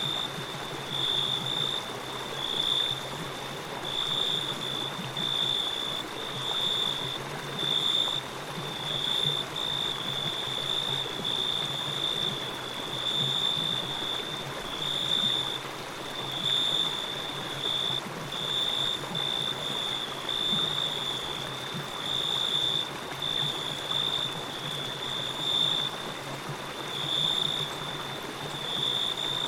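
Steady rushing of a flowing stream, with a high-pitched pulsing chirr running on above it almost without a break.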